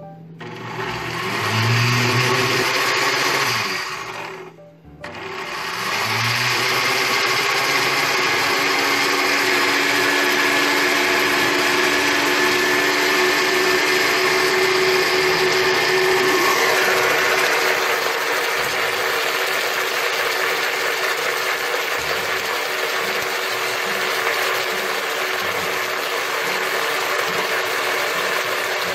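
Oster countertop blender motor spinning up with a rising whine, cutting out briefly about four seconds in, then spinning up again and running steadily as it blends eggs, garlic and oil into garlic mayonnaise. Its tone changes slightly a little past halfway.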